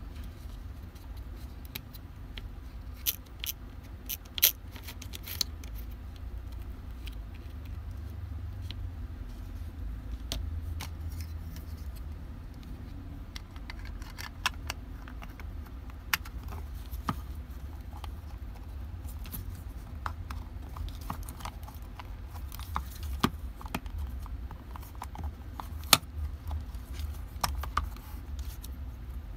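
Tools and small metal parts clicking and tapping irregularly as they are handled, over a steady low rumble.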